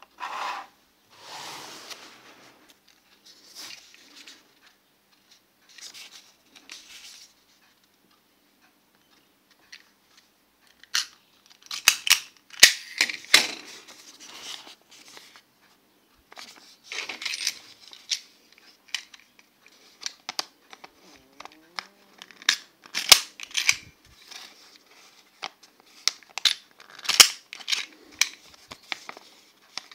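Paper rustling and handling, with sharp clicks and snaps as a Gachuck paper binder clamps smiley-faced metal clips onto the edge of a small stack of paper. The clicks come in clusters through the second half.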